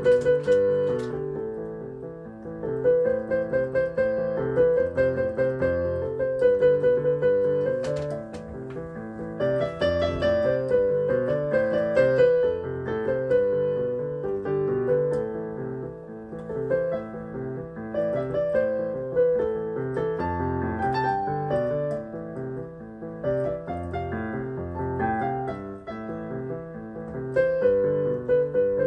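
Yamaha PSR-E463 portable keyboard played in a piano voice: a steady tune in the right hand over chords and low bass notes.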